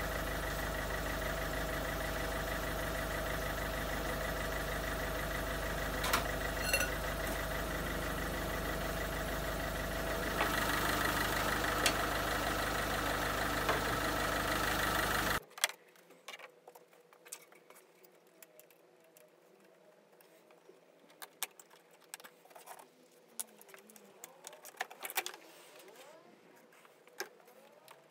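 Peugeot 1.6 HDi four-cylinder turbodiesel, its rear silencer deleted, idling steadily and getting a little louder about ten seconds in. The engine sound cuts off abruptly about halfway through. After that come only scattered light clicks and taps as the engine bay is worked on.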